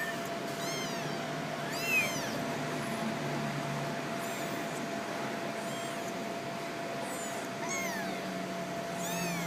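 Kittens meowing, several short high-pitched meows one every second or two, the loudest about two seconds in, over a faint steady hum.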